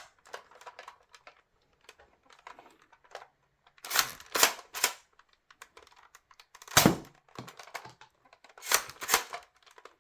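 X-Shot toy shotgun blaster being worked by hand: loud plastic clacks and snaps of pumping and firing foam darts, three quick ones in a row, one heavy snap near the middle and a pair near the end, among small clicky handling noises.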